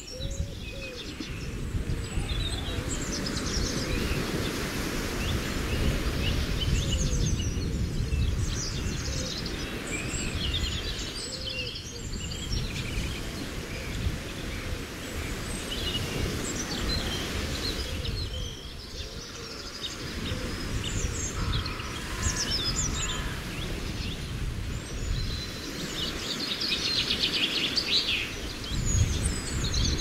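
Small birds chirping and whistling in short, scattered calls throughout, with a fast trill near the end, over a steady low wash of lake water.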